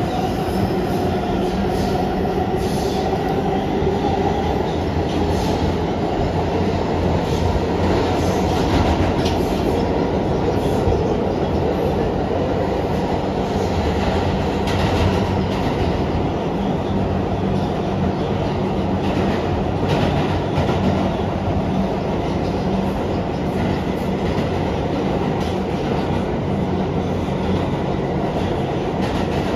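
Onboard noise of a New York City Subway R211A car running in service: a steady rumble of wheels on rail with a low motor hum and scattered clicks from the track. In the first few seconds a whine glides in pitch and fades.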